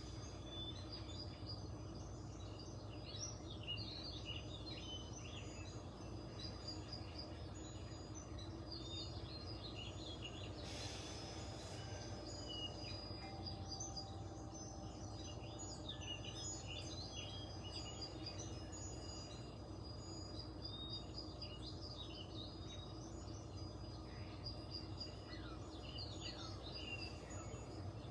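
Birds chirping and twittering faintly in the background over a steady low hum, with a brief hiss a little before the middle.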